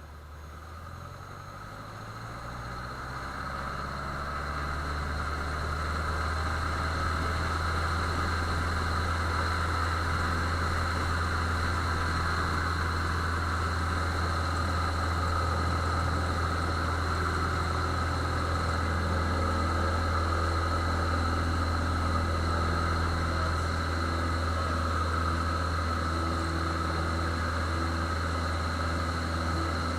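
Cessna 150F's light-aircraft piston engine and propeller, rising in pitch and loudness over the first several seconds as power comes up, then running steadily at high power.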